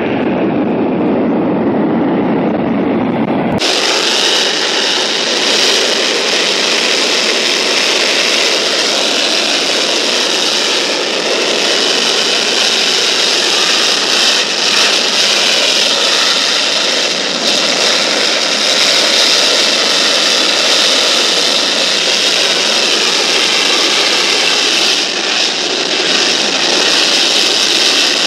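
General Electric J79-11B afterburning turbojet running steadily at high power with its afterburner lit. For the first three and a half seconds it is heard from a distance and sounds muffled, then it is close and much brighter and hissier.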